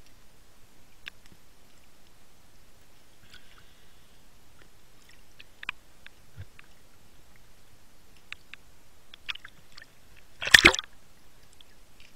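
Underwater sound with faint scattered clicks, then one loud, sharp crack about ten seconds in, typical of a speargun being fired at a fish.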